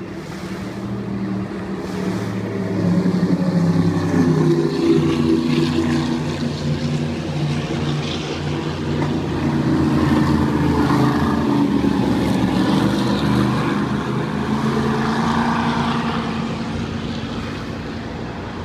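Racing powerboats' engines droning as they run past at speed. The deep drone swells as a boat comes by, peaks again around ten seconds in as a second boat passes, and fades near the end.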